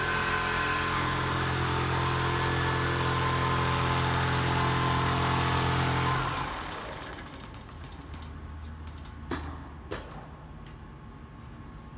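Frame-type single-needle quilting machine running steadily with a motor hum, then winding down and stopping about six seconds in. Two sharp knocks follow near the end.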